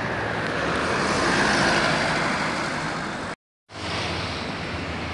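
Road traffic noise from passing vehicles on a highway, swelling to a peak about a second or two in and easing off. It drops out for a moment at about three and a half seconds, then comes back as a steadier, quieter traffic hum.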